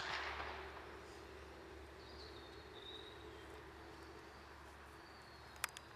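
A gunshot right at the start, its echo fading over about a second, then a quiet open-air background with a low steady rumble. A brief high chirp comes about two seconds in, and a single sharp crack sounds near the end.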